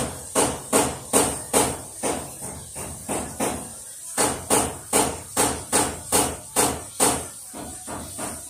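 A regular series of sharp knocks, like hammer blows, about two and a half a second, with a short break a little before halfway and softer knocks near the end.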